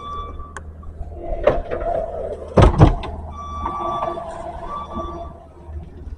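Skid steer loader at work: the engine runs steadily under a whine that comes and goes. Metal clanks cut across it, the loudest two close together near the middle.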